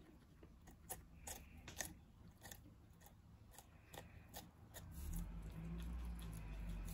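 Guinea pig biting and chewing a raw red bell pepper: a series of sharp, crisp crunches, mostly in the first five seconds. A steady low rumble comes up about five seconds in.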